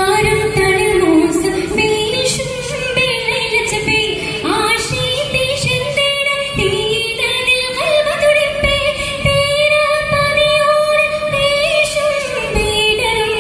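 A girl's solo voice singing a Mappilappattu song into a stage microphone. The line is ornamented and melismatic, with a long held, wavering note from about halfway through until near the end.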